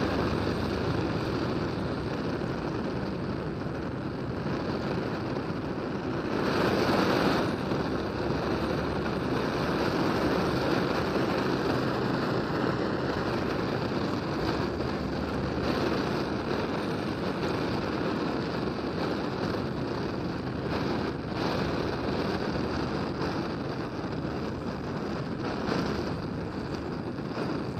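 Gas torch flame burning steadily with a continuous rushing noise, swelling for about a second some six and a half seconds in.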